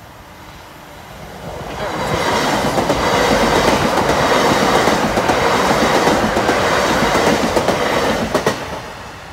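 LNER Class 800 Azuma bi-mode train passing at speed over a level crossing. The sound of the train and its wheels on the rails builds over the first two seconds, stays loud for about six seconds, then falls away near the end, with a few sharp clicks just before it fades.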